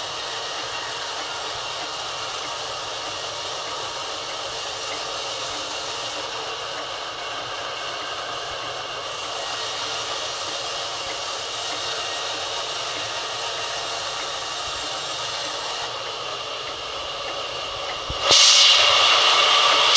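Vertical band sawmill running steadily with its blade spinning free. Near the end the sound jumps suddenly much louder, with a strong high hiss, as the blade starts cutting into the log.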